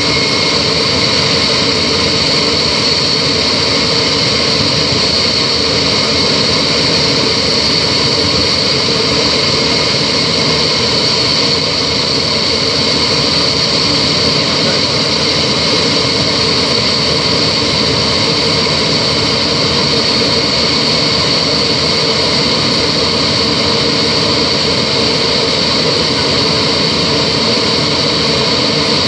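Yak-42's three D-36 turbofan engines at climb power just after takeoff, heard inside the passenger cabin: a steady loud rush of noise with a constant high turbine whistle.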